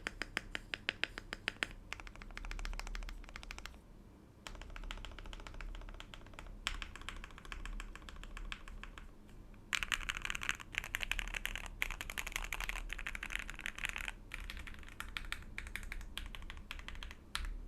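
Mechanical keyboard (Akko Mod006 with an aluminium plate and lubed Gateron Yellow Clear Pro linear switches under PBT keycaps) being typed on. It starts with a quick, even run of keystrokes, then goes on in bursts of typing with short pauses, densest a little past the middle.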